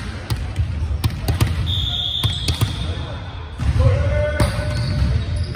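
Volleyball being served and hit in a gymnasium: several sharp smacks of hands on the ball, with a steady high squeal lasting about two seconds in the middle and players shouting near the end.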